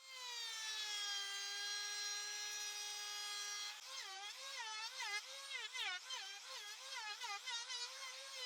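Electric hand drill running a 3.5 mm bit with a countersink through wood. Its motor whine dips slightly, then holds steady. From about four seconds in the pitch wavers up and down again and again as the bit is worked under load.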